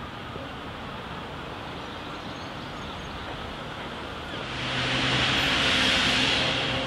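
Wind buffeting the microphone, then, about four and a half seconds in, a loud steady hiss of steam from the open cylinder drain cocks of a steam tank locomotive as it starts, with a low steady hum beneath it.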